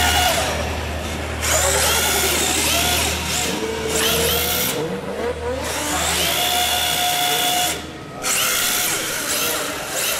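Electric motors of RC drift cars whining under throttle, in repeated bursts whose pitch climbs quickly, holds, then falls away, with short breaks when the throttle is released.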